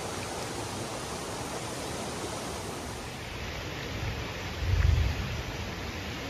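Steady rush of a shallow river's flowing water, with a brief low rumble about four and a half seconds in.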